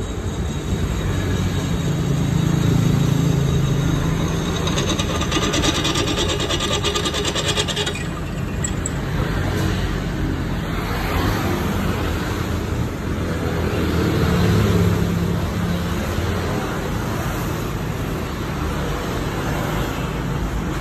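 Ashina bench drill press with an open belt-and-pulley drive, running steadily while its twist bit cuts through a steel plate. A rapid, harsh cutting chatter rises over the machine's running noise from about four and a half to eight seconds in.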